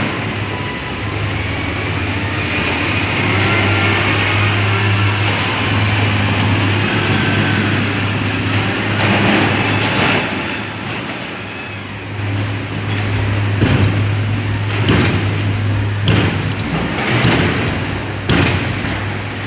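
SANY earthmoving machine at work: its diesel engine running steadily under a faint wavering whine, with a series of sharp metallic clanks from about halfway through.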